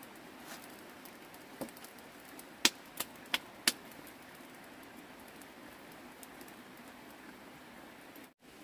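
Open wood fire burning with a steady low hiss, and a quick run of four sharp cracks about two and a half to four seconds in, after a couple of fainter ones.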